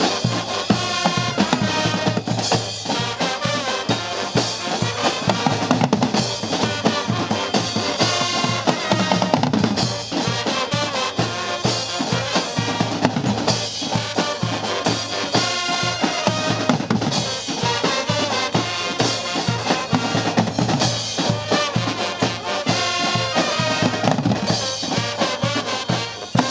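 A Guggenmusik band, the Swiss carnival style of brass band, playing loudly: trumpets, trombones and a sousaphone over a drum section of snare drums, bass drums and cymbals.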